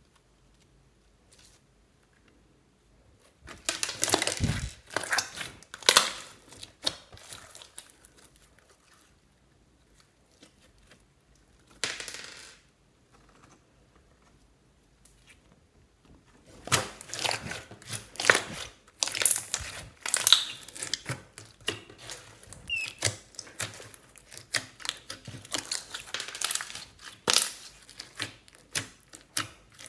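Clear glitter slime full of small beads being squished and pressed by hand, giving wet crackling, clicking and popping of trapped air. It comes in spurts: a burst a few seconds in, a short one near the middle, and almost unbroken crackling from a little past halfway.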